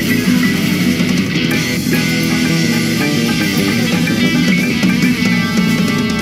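Live band playing an upbeat rock tune, led by electric guitar with keyboards.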